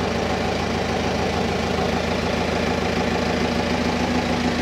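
An engine running steadily at an even speed, heard close in a boat's engine room.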